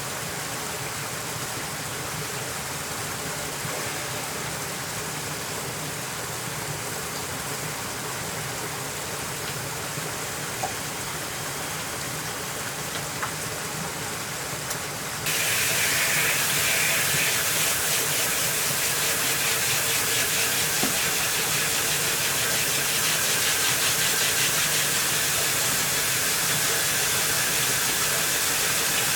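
Pressurised water hissing from the leaking joints of a century-old microhydro turbine and its supply valve. About halfway through, a much louder, brighter rush of water starts suddenly and holds steady as water jets through the turbine.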